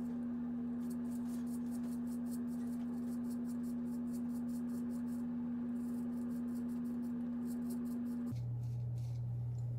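Straight razor scraping through stubble in runs of fast, faint crackling strokes, over a steady low drone that drops to a lower pitch about eight seconds in.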